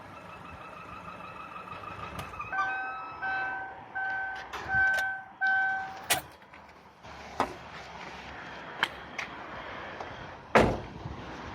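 A steady high-pitched whistle from a 2007 Chevrolet Aveo 1.2 that stops about two seconds in. Five evenly spaced beeps of a car warning chime follow, then a sharp click, a few light knocks and a loud thump near the end.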